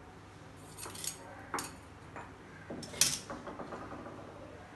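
Stainless steel pot and lid clinking and knocking against metal, a few separate knocks, the loudest about three seconds in and ringing briefly after it, as the covered biryani pot is settled on the stove for dum cooking.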